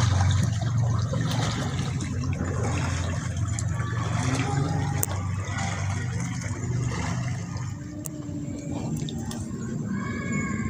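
River water sloshing and rushing, with a low rumble that is loudest in the first few seconds and then eases.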